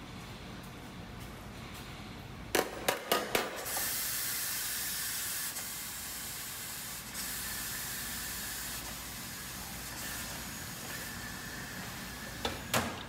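Stainless-steel tofu molds and pressing lid clank four times in quick succession. A loud steady hiss then runs for about eight seconds, and two more metal clanks come near the end.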